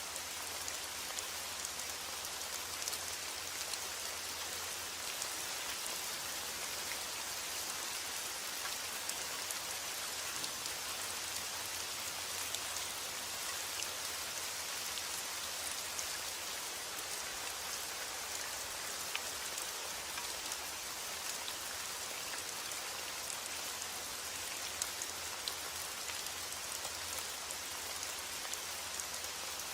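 Steady rain falling, a continuous hiss of many drops with small drop ticks scattered through it.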